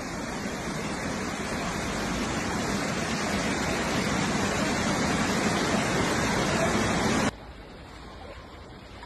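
Floodwater rushing, a steady loud noise that slowly swells, then cuts off abruptly near the end to a quieter rush.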